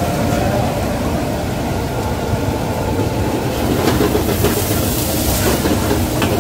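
Gas wok burner running with a steady low rush under a wok of ground pork frying, with sizzling and a few scrapes of a metal ladle against the wok around the middle.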